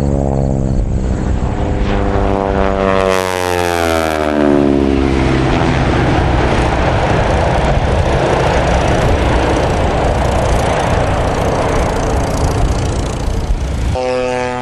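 North American T-6 Texan's Pratt & Whitney R-1340 radial engine and propeller making a low flyby. The engine note falls in pitch over the first few seconds as the plane passes, then gives way to a steady rush of engine and propeller noise as it goes away.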